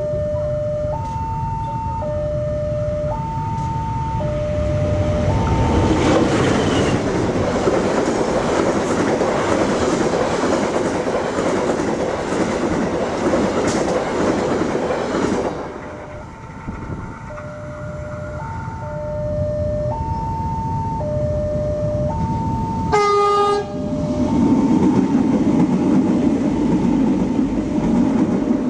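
A level crossing alarm sounds two alternating tones, changing about once a second, while a passenger train's coaches clatter past for about ten seconds. After a lull with the alarm still going, a train horn gives a short blast about 23 seconds in and a second train rolls past.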